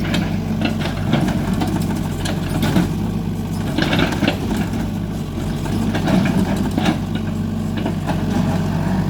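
Excavator's diesel engine running steadily, with scattered knocks and rattles over it.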